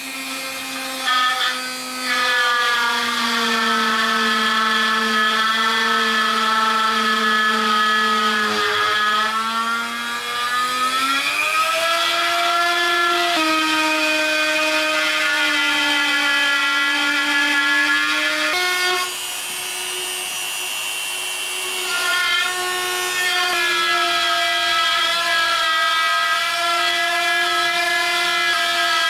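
Corded electric drill mounted on a homemade pantograph woodcarving machine, running with its bit cutting into a wooden board. The motor's whine sags and rises in pitch as the cutting load changes, with a few sudden pitch jumps and a quieter stretch about two-thirds of the way through.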